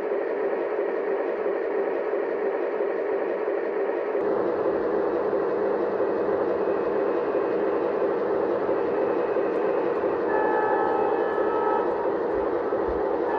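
Lionel Legacy RailSounds diesel idle of an O-gauge Union Pacific ALCO PA model, a steady engine sound from the locomotive's small onboard speaker that shifts deeper about four seconds in. Near the end, short steady tones at several pitches come and go over it.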